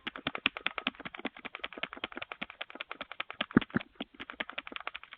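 Rapid, continuous knocking on a front door, about ten knocks a second, picked up through a doorbell camera's microphone.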